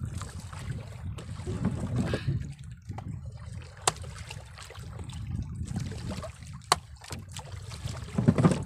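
Two sharp knocks a few seconds apart: a short wooden club striking the head of a freshly caught fish to kill it. Under them, a steady low rumble of wind and water.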